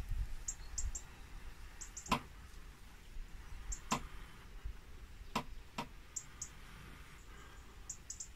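A smouldering fibre tinder bundle being handled and folded around its ember: a few faint, sharp clicks and crackles, spaced a second or so apart. Faint, very short high bird chirps come and go behind them.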